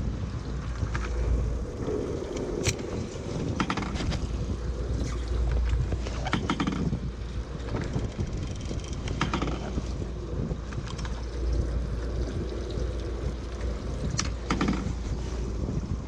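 Wind buffeting the microphone on an open boat at sea, with water washing against the hull. A few short sharp clicks and knocks stand out, about five of them spread through.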